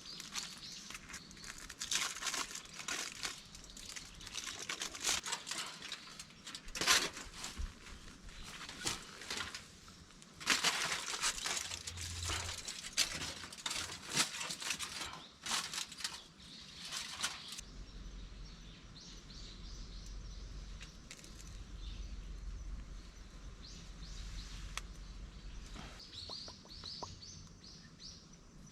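Irregular rustling and crinkling for about the first two-thirds. After that comes a low steady rumble, with a few small bird chirps near the end.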